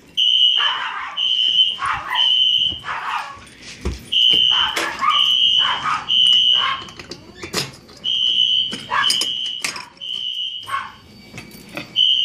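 Fire alarm horns sounding in the temporal-three evacuation pattern: three short, high-pitched beeps, then a pause, repeating about every four seconds.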